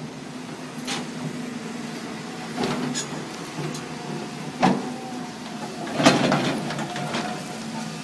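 Volvo excavator running steadily while its trenching bucket digs into the soil of a trench, with several sharp knocks and clanks of the bucket and linkage, the loudest about six seconds in.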